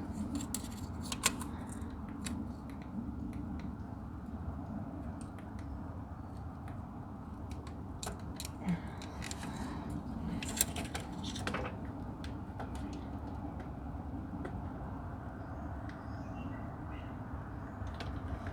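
Scattered light clicks and short scrapes of a handheld inspection camera being worked through an injector hole into a diesel cylinder, over a steady low hum.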